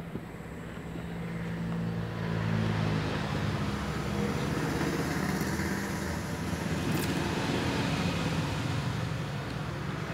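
Steady rumble of a motor vehicle's engine running, growing louder about two seconds in and then holding.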